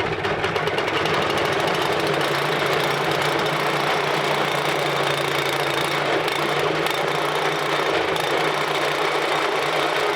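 Gas engine of a portable sawmill running steadily at a constant speed.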